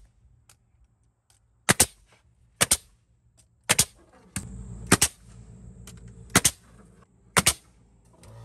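DeWalt cordless 15-gauge finish nailer firing stainless steel nails into small wood blocks: six sharp shots, each a quick double snap, about a second apart.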